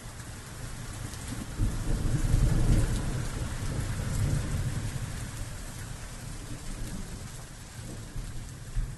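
Steady rain with a low rumble of thunder that swells a couple of seconds in and slowly fades away.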